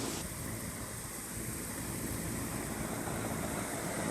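A 2004 Tempstar 4-ton straight-cool central air-conditioner condensing unit running steadily, its Copeland reciprocating compressor giving a low hum under the condenser fan's even rush of air.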